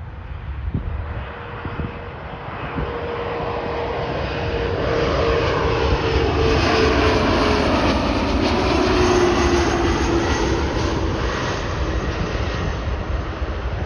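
CityJet CRJ-1000 regional jet's twin General Electric CF34 turbofans passing by. The sound swells to its loudest about two-thirds of the way through, and the engine's whine drops in pitch as the jet goes past.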